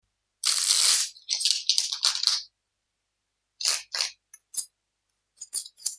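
A deck of tarot cards being handled: a short rush of cards sliding against each other, then a scatter of crisp clicks and taps as a card is pulled from the deck.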